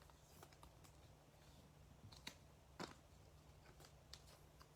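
Near silence: a steady low electrical hum with a scattering of faint, short clicks and taps, two of them a little clearer about two and a half seconds in.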